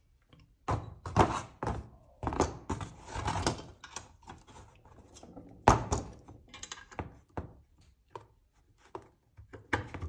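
Aluminium Stronglight crank arm and chainring handled and set down on cardboard: a series of knocks and clunks in bunches, the loudest just before the six-second mark.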